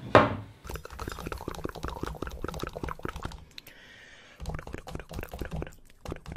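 A sharp knock right at the start, then a run of small clicks and clinks: a metal spoon, an oil bottle and an oat-drink carton handled over an enamel bowl while oil and oat drink are poured off the spoon into dry cookie-dough mix.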